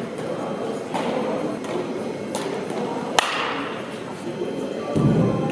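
A baseball bat striking a pitched ball with one sharp crack about three seconds in, over a steady, echoing background, with a few softer knocks.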